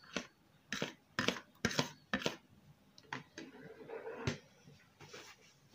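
Thick strawberry purée being scraped out of a plastic bowl into plastic tubs: a string of short knocks and scrapes of a utensil against the bowl, with a longer scrape about three to four seconds in.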